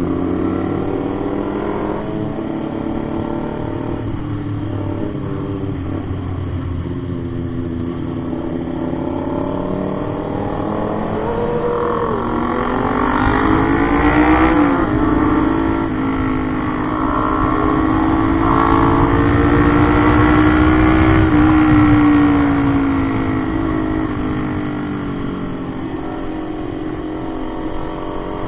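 Motorcycle engine running under way. Its pitch rises as it accelerates about halfway in, drops briefly, rises again toward the twenty-second mark, then falls back as the throttle eases.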